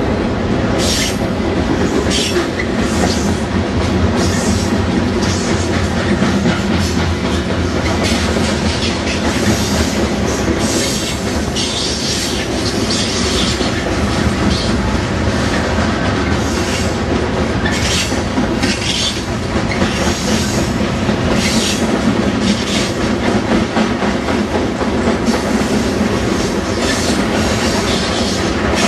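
Cars of a manifest freight train rolling past close by: a steady rumble and clatter of steel wheels on the rails, with frequent short high-pitched squeals from the wheels.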